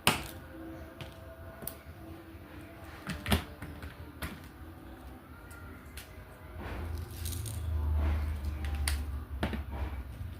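Small hard clicks and rattles of resin diamond-painting drills being handled and tapped onto the canvas with a drill pen, with a sharp tap at the very start and another about three seconds in. A low rumble runs through the second half.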